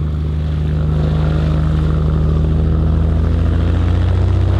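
Cessna 180's six-cylinder Continental O-470 engine and propeller at takeoff power during the takeoff roll: a steady, deep drone that grows slightly louder.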